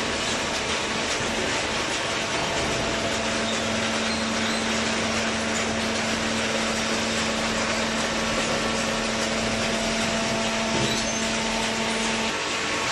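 Fully automatic horizontal cardboard baler running: a steady mechanical noise, with a steady hum that comes in a couple of seconds in and stops shortly before the end.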